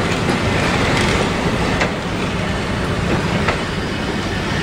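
Vintage passenger coaches rolling past close by: a steady rumble of wheels on rail, with sharp clicks as the wheels cross rail joints.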